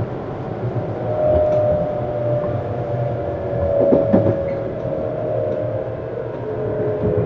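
Running noise inside a Tokyu 7700 series electric motor car: wheels on rail under a steady motor whine that slowly falls in pitch, then steps down to a lower tone near the end. A couple of sharp knocks come about four seconds in.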